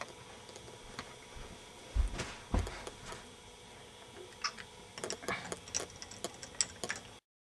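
Scattered light plastic clicks and taps from hands on a K'nex ball machine and its Lego Mindstorms NXT brick, with two low thumps about two seconds in and a quicker run of clicks in the last couple of seconds before the sound cuts off.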